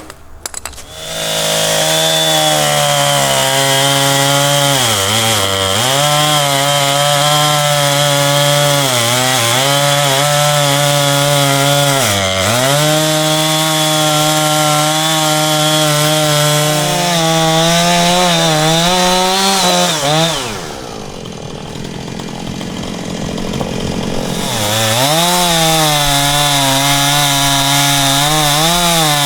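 Two-stroke chainsaw, a Husqvarna Rancher 460, ripping lengthwise through a blackjack oak log. It comes up to full speed about a second in and runs hard, with the pitch dipping briefly under load several times. Near the end the engine tone drops away for about four seconds, leaving a quieter rushing noise, then picks back up.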